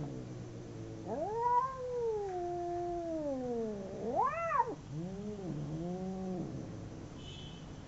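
Two cats caterwauling in a fight standoff: long drawn-out yowls that slide up and down in pitch. The loudest is a sharp rising-and-falling wail about four seconds in, followed by shorter wavering yowls that die away near the end.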